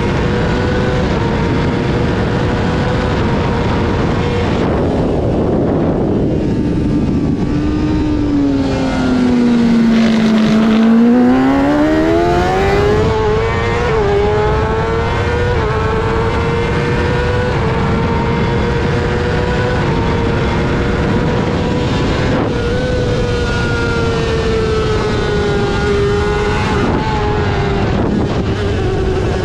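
Honda CBR600's inline-four engine at high revs under racing load, with wind noise throughout. About ten seconds in, the pitch falls steeply as the bike slows, then climbs back with brief steps as it changes up through the gears.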